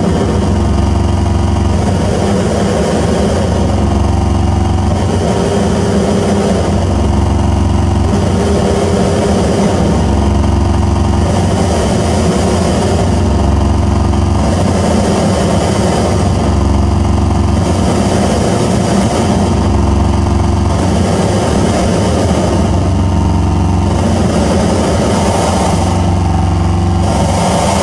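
Loud, dense electronic noise drone from a live noise-music rig, a heavy low rumble filling the whole range with a slow, uneven pulse every couple of seconds.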